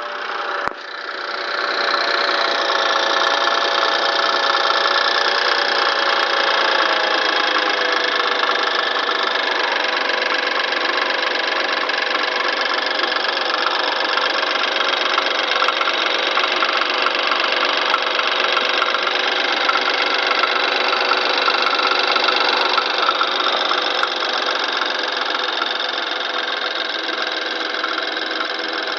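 BMW N20 2.0-litre turbocharged four-cylinder petrol engine starting with a click just under a second in, then running steadily at idle with a rattle that the owner doubts is normal and wonders may come from the turbo's wastegate flap. It runs a little quieter from about 24 seconds in.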